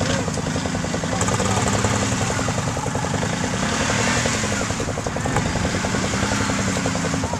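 Argo 6x6's engine running hard under load while it tows a stuck four-wheeler out of a mud hole, with a fast, even firing beat and revs that rise and fall.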